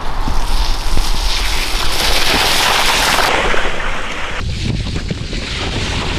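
Wind rushing over the action-camera microphone, with the tyres of small 16-inch kids' bikes running fast over a wet, muddy dirt trail. The noise is loud and even, and it changes abruptly twice: a little past halfway and again soon after.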